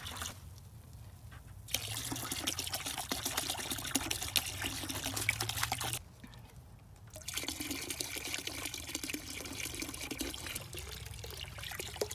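RV antifreeze pouring from a plastic jug into a bucket already part-filled with liquid, in two stretches with a short break about six seconds in.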